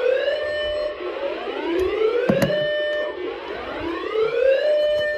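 Electronic whoop alarm: a tone that rises over about a second and a half, holds briefly, and repeats about every two seconds, three times. There is a single sharp click about two and a half seconds in.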